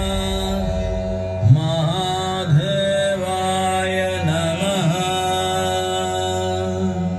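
Indian devotional music: a chanted melody of long held notes that slide and bend every second or two, over a steady low drone.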